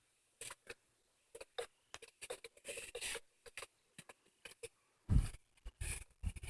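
Scattered light rustles and clicks of movement and gear handling, then two heavier bumps about five and six seconds in.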